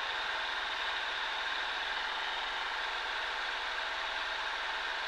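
Cessna 140A's single piston engine running at a steady, unchanging drone, heard inside the small cockpit.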